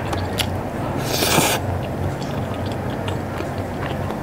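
Noodles slurped in with a short hissing rush about a second in, followed by soft chewing and small mouth clicks, over a low steady hum.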